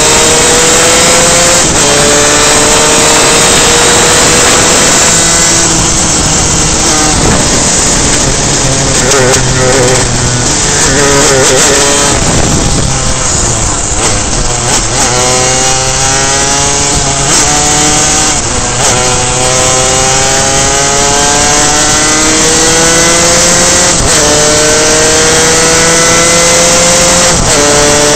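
Superkart's two-stroke engine at full throttle, climbing in pitch and dropping sharply at each of several gear upshifts. In the middle there is a rougher, unsteady stretch of braking and downshifting before it pulls up through the gears again.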